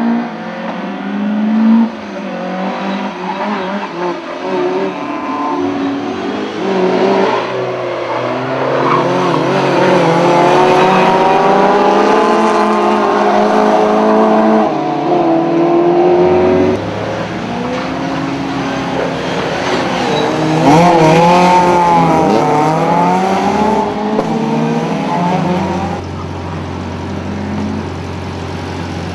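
Rally car engines at full throttle, the note climbing through the gears and dropping back on lifts and braking as a Mk1 Ford Escort and a Citroën hatchback race around a circuit. The note settles lower and steadier for the last few seconds.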